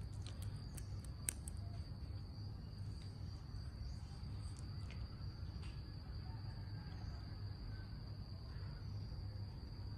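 Steady high-pitched insect trill over a low hum, with a few light clicks in the first second and a half.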